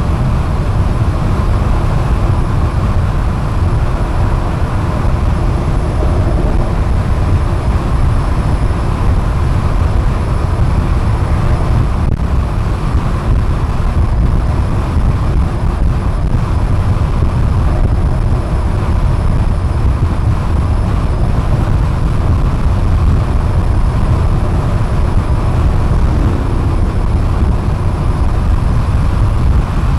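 Steady road noise of a car cruising on a highway: a constant low rumble of tyres, engine and wind with no changes.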